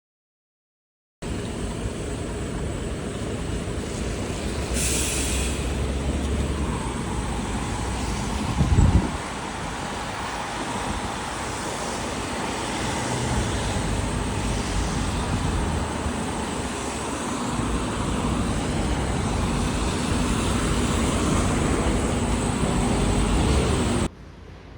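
Steady road-traffic and vehicle noise. It starts abruptly about a second in, swells briefly with a louder low rumble about nine seconds in, and cuts off abruptly near the end.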